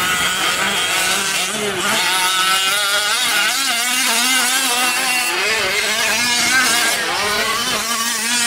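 Several 1/5-scale gas RC race trucks' small two-stroke engines revving up and down, their pitches rising and falling over one another as they race.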